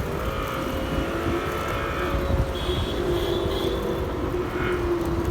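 Ola S1 Pro electric scooter's artificial motor sound in Bolt mode, played through its speaker: a steady hum that dips and rises slightly in pitch, over a constant low rumble.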